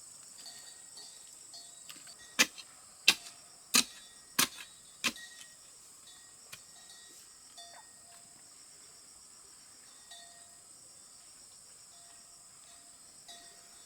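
Five sharp strikes in an even rhythm, about one and a half a second, from a hand tool hitting wood, over a steady high drone of insects.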